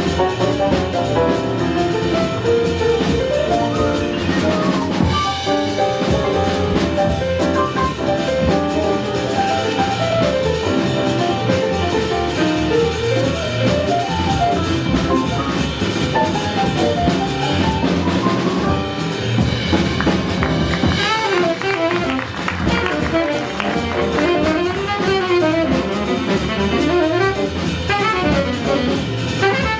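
Small jazz band playing live, instrumental: drum kit, bass, piano and guitar under a lead line of quick running notes.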